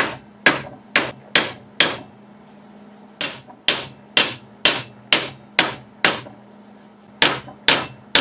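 Small hammer tapping a steel punch to drive staples deeper into the corner of an oak clock case: sharp taps about two a second in three runs, with a short pause about two seconds in and another about six seconds in.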